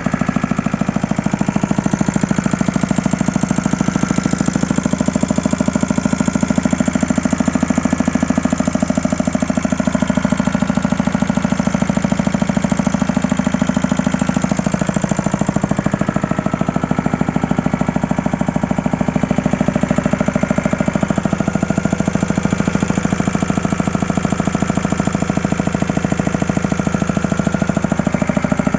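Aurel generator set's engine running with a loud, steady, rapid knocking chatter. The generator is smoking, and the noise is one that the owner finds strange, a sign that something is wrong with the engine.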